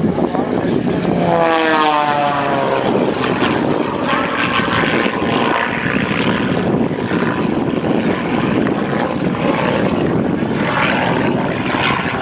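Single-engine propeller stunt plane flying past, its engine and propeller note sliding down in pitch as it goes by about a second or two in, then a steady loud drone as it flies on.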